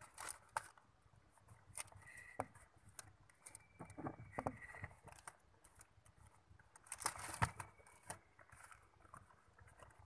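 Faint rustling and crinkling of a plastic bag and carton lining in a box as a mother cat and her nursing kittens shift against it, with scattered small clicks and a louder rustle about seven seconds in. A thin, faint high squeak sounds briefly twice, around two and four seconds in.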